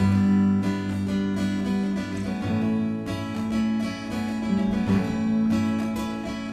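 Background music: strummed acoustic guitar, with chords that change every second or so.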